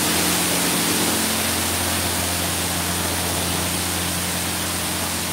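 PDQ Laserwash 4000 touchless car wash spraying water over a vehicle: a steady rush and hiss of spray, with a steady low hum underneath.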